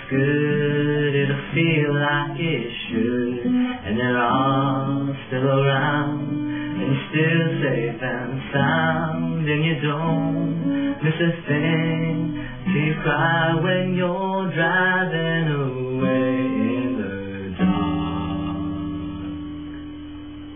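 Acoustic guitar strummed under a man's singing voice. Near the end the playing stops on a chord that rings and slowly fades.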